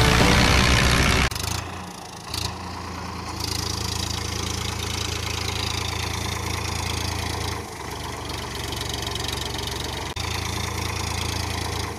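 Steady low, engine-like hum of a homemade model tractor running, dropping out briefly twice.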